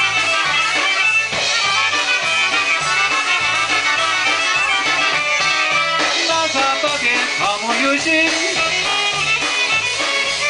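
Live polka band playing an instrumental passage. Trumpets, fiddle and accordion carry the tune over alternating bass notes from an electric bass guitar and a steady drum beat.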